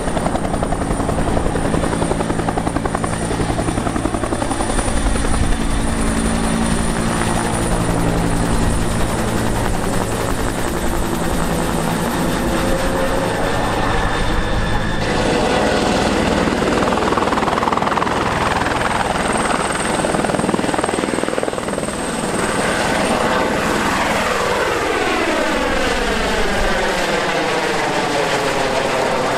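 Turbine helicopters in flight. First a Bell UH-1-type helicopter runs steadily at lift-off, its two-blade rotor and turbine making one even, pitched sound. Then, after a sudden change about halfway through, helicopters pass low overhead, their sound sweeping in pitch as they go by; the last is an Airbus H130.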